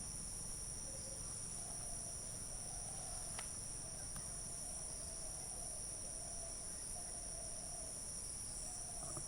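Forest ambience dominated by a steady, high-pitched insect chorus, a continuous even trilling that does not change.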